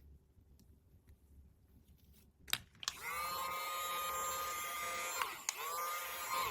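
A click, then a small electric motor starting and whirring steadily at a fixed pitch, dipping briefly twice as if momentarily slowed.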